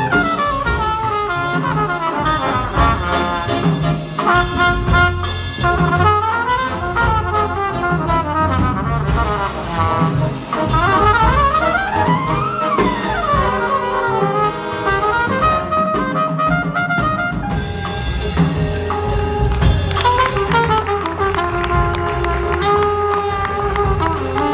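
Big band playing jazz live: a trumpet solos over the saxophone and trombone sections, upright bass and drums. About halfway through there is a fast run that climbs and falls back.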